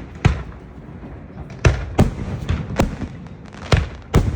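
Fireworks exploding: a quick run of sharp bangs at uneven intervals, each followed by a low rumbling tail.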